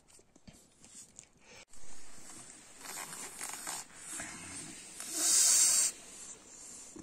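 A pug sniffing at a barrel of live fish in short, noisy, hissing breaths. The loudest comes about five seconds in.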